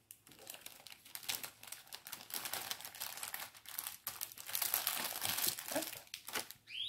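Packaging of a diamond painting kit crinkling and rustling in irregular crackles as it is opened and handled, with a short rising squeak near the end.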